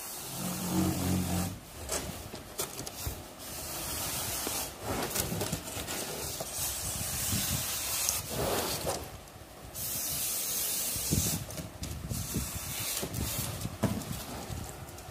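Hand-held duct-panel cutter dragged through a foil-faced pre-insulated foam sandwich panel: a long scratchy hiss of the blade slicing foil and foam, in several long strokes with short pauses between them.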